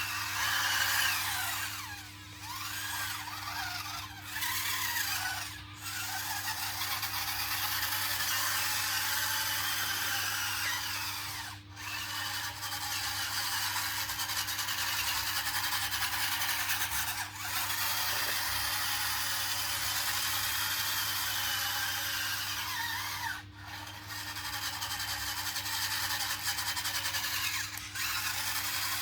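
Small electric drive motors and gearboxes of a 1/16-scale RC bulldozer whining, the pitch rising and falling as it drives, with brief stops every few seconds.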